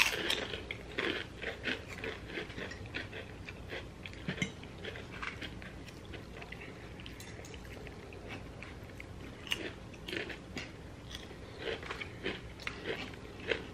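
Close-up chewing and crunching of food, Ruffles potato chips among it, with scattered short clicks and scrapes of knives and forks on plates.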